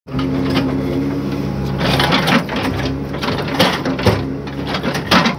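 JCB backhoe loader's diesel engine running at a steady speed while the backhoe digs, with several sharp knocks and scrapes as the bucket works into the soil.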